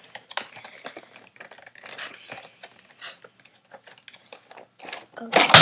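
Plastic packaging being handled as a Rubik's Cube is worked out of its case: a run of small clicks and rustles, then one loud clatter near the end as the cube slips out.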